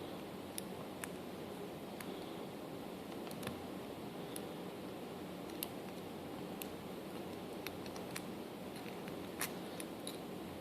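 Lock pick and tensioner working the pins of a brass five-pin padlock under light tension: irregular small sharp metallic clicks and ticks, a couple of dozen over the span, the sharpest a little before the end, over a steady low hiss.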